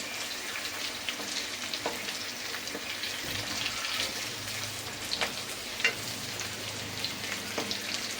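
Stuffed bitter gourds frying in oil in a kadhai over a low flame: a steady sizzle with scattered sharp pops and crackles.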